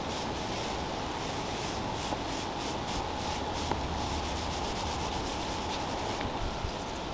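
Cloth rubbing over an oiled wooden tabletop in repeated back-and-forth wiping strokes, working the oil finish in and wiping off the excess.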